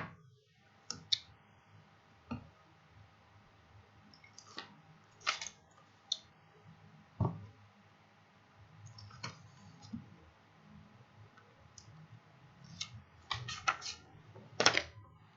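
Irregular short clicks and taps of paper and tape being handled on a desk, with a cluster of louder ones near the end.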